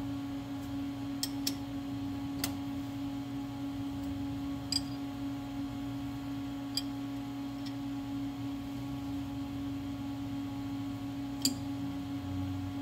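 Steady hum from a Haas CNC lathe standing powered up with its spindle still. Over it come a scattering of light metallic clicks and taps from a hex key and hand working the True Bore chuck; the sharpest is near the end.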